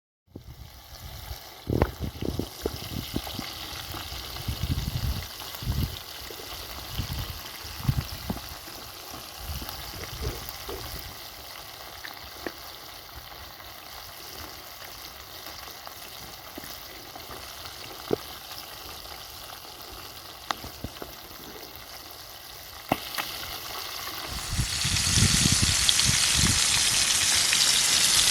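Food frying in a hot pan, a steady sizzle with scattered knocks and thumps in the first ten seconds. About 24 seconds in the sizzle suddenly grows much louder and stays that way.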